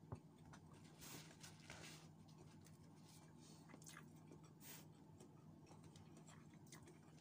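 Faint close-up chewing of a mouthful of rice and food, with a sharp click just after the start and a few soft rustles, over a low steady hum.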